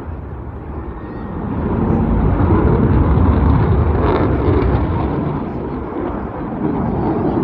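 Jet noise from a Eurofighter Typhoon's twin EJ200 turbofan engines in a display flypast: a loud, deep rumble that swells about two seconds in, eases near the six-second mark and builds again at the end.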